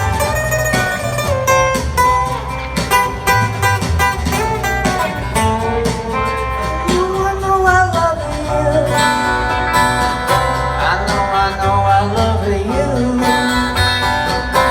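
Country-style band music, an instrumental stretch led by guitar with bending notes over bass and a steady beat.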